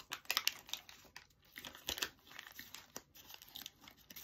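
Paper sandwich wrapper crinkling and crackling as it is handled around a toast sandwich, in irregular rustles, with some chewing.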